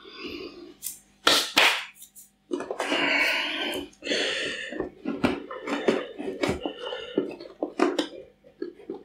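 Loose soil substrate being pushed and packed by hand inside a tall glass jar: gritty scraping and rustling with many short knocks against the glass, and two longer scrapes about two and a half and four seconds in.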